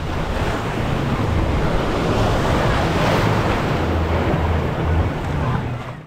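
Water rushing and splashing down a concrete river-style water slide under a rider's inner tube, with wind buffeting the microphone as a low rumble. It fades out near the end.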